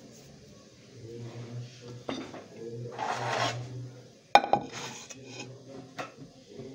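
Metal pots and pans handled on a kitchen counter: a sharp clank about four seconds in as a wok is set down, with lighter scrapes and knocks around it. A low hum comes and goes underneath.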